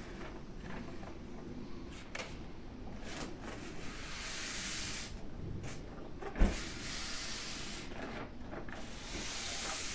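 Handling noise from a rifle being worked by hand: light rubbing and clicks, with one short dull thump about six seconds in and two swells of hiss. The stock is being checked where it rubs on the barrel.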